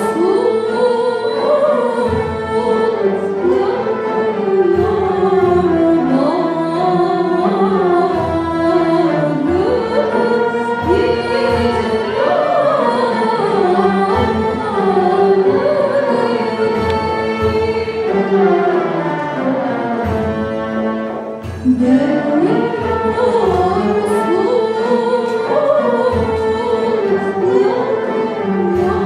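Turkish classical music ensemble of violins, cello, ud and other instruments playing a song in makam Kürdîlihicazkâr, with a woman singing over it. There is a brief lull about two-thirds of the way through before the music comes back in strongly.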